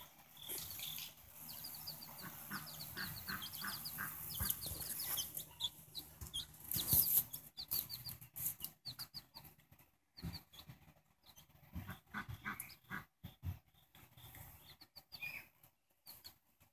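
Chickens clucking softly, with runs of short, high peeps typical of chicks, and a mother hen with her young chicks, the chicks peeping among scattered brief soft knocks.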